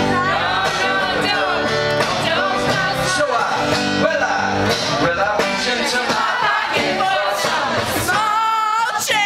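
Live song: a man singing over guitar accompaniment, with a long wavering sung note near the end.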